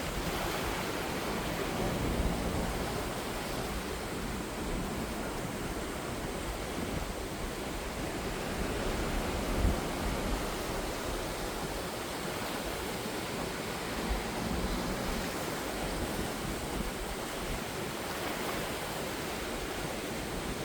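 Sea waves washing in a steady surf, swelling gently now and then, with a few low thuds.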